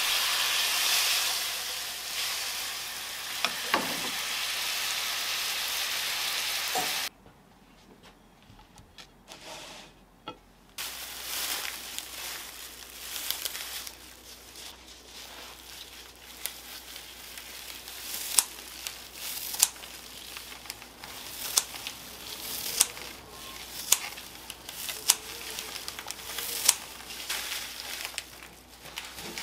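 Pork-belly rolls sizzling in a frying pan in a soy and mirin glaze; the sizzling cuts off suddenly about seven seconds in. After a brief hush come softer rustling and scattered sharp clicks as gloved hands handle a bunch of pea shoots.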